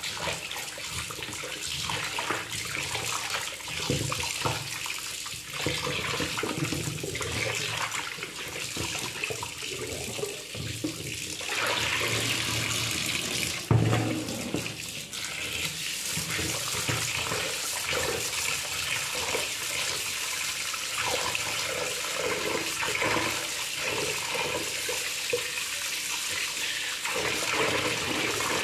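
Tap water running into a plastic bowl in a stainless steel sink, splashing as fish steaks are rubbed and rinsed by hand.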